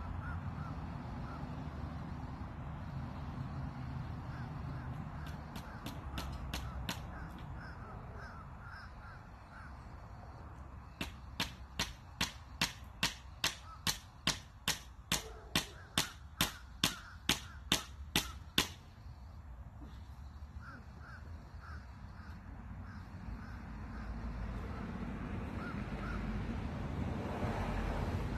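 Hammer driving nails into wood. A short run of light, quick taps comes first, then a steady run of about twenty hard blows, two or three a second, which stops suddenly.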